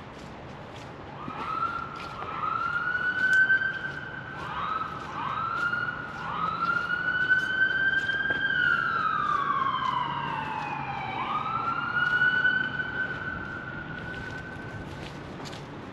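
Dogs howling: several overlapping long howls that each rise quickly and then hold, one sliding down in pitch about halfway through. Faint footsteps click underneath.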